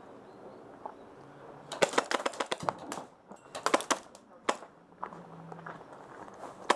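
Airsoft rifle firing: a quick burst of sharp shots about two seconds in, then shorter bursts and single shots.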